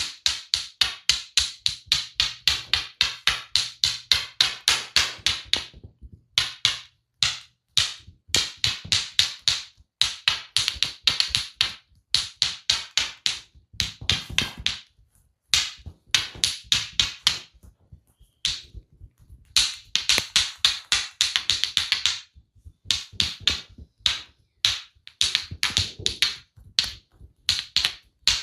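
Rapid percussive massage strokes (tapotement) striking the body, sharp slapping taps at about five a second. They come in runs of a few seconds with short breaks between them.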